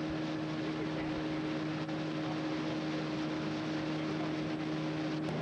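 Boat motor running at a steady speed: an even engine hum over water and wind noise, with no change in pitch.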